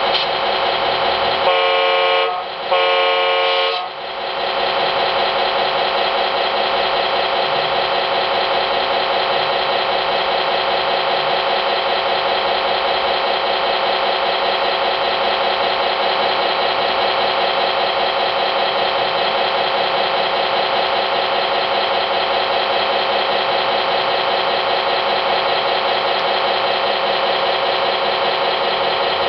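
Synthesized engine and horn sounds from an SMX RC-model sound module through its small speaker. Two horn blasts come about two seconds in, then a steady simulated engine running at a constant pitch.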